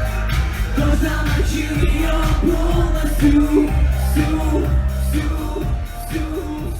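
Loud live pop dance music: a steady pounding bass beat with a melody sung or played over it, the level easing slightly near the end.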